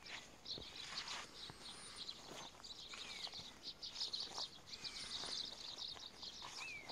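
Small birds twittering with rapid high chirps, with a few short down-slurred calls. Footsteps in grass sound faintly underneath.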